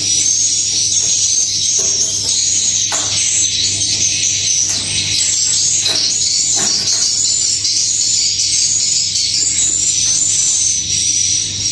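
Dense, continuous high-pitched chirping of swiftlets, the sound that fills a swiftlet nesting house, over a low steady hum, with a few brief clicks.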